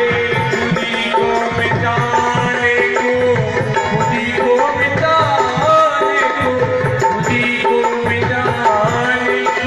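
Instrumental interlude of a Hindi devotional bhajan: tabla playing a steady rhythm under a melody instrument holding sustained notes.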